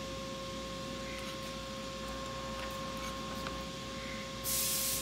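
A short, loud hiss lasting about half a second near the end, over a steady electrical whine and a few faint small ticks.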